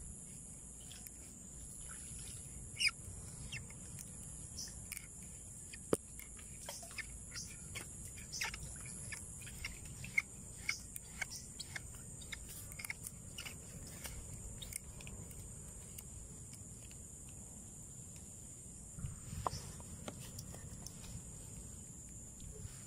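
Insects, such as crickets, trilling steadily and high-pitched, with scattered short chirps and clicks and a few sharper ticks.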